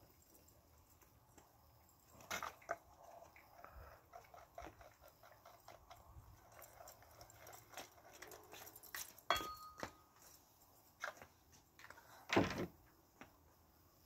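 Wire whisk scraping and tapping in a stainless-steel bowl as batter is mixed, with a few sharp knocks of utensils against metal. One knock about nine seconds in rings briefly.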